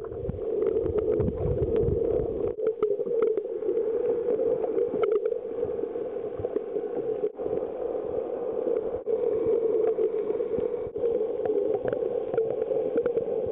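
Muffled water noise heard underwater through a waterproof pocket camera's built-in microphone while snorkeling: a steady dull rushing hiss, with a low rumble in the first couple of seconds and a few faint clicks.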